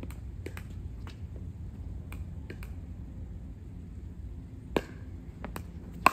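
Pickleball paddles hitting the plastic ball back and forth in a rally: a string of sharp pocks, soft at first, then two loud ones about a second and a quarter apart near the end.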